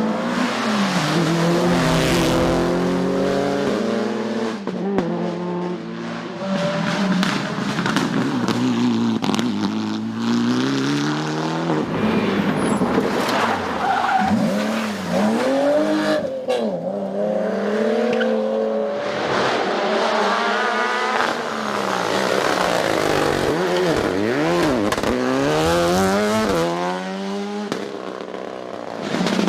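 Rally cars at speed on a stage. Engines rev hard, then drop back through gear changes and lift-offs as the cars go by one after another, with tyre noise underneath.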